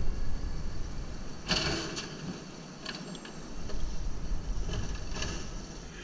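Automated side-loader garbage truck idling while its arm handles a recycling cart, with a few short clattering noises, the longest about a second and a half in.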